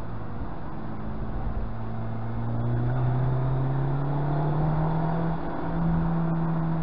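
Mazda MX-5's four-cylinder engine heard from inside the car under way, over tyre and road rumble. The engine note climbs steadily from about two seconds in as the car accelerates, dips briefly near the end, then holds.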